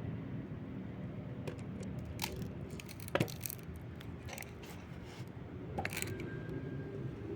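Bee colony humming inside a small hive box, a steady low buzz, with scattered light clicks and scrapes over it, the sharpest about three seconds in.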